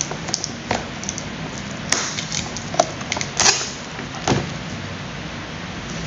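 Hands pulling a rubber band and clear plastic wrapping off a coffee maker's plastic base: light crinkling and handling noise, with a few sharper clicks spread through.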